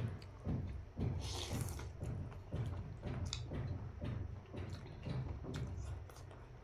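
Close-miked eating of noodles in soup: slurping and chewing in a steady rhythm of about two mouthfuls a second, with a longer slurp about a second in.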